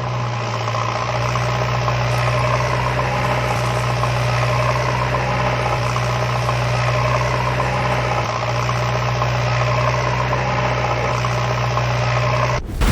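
An engine running steadily at idle, with an even low hum, then cutting off abruptly near the end.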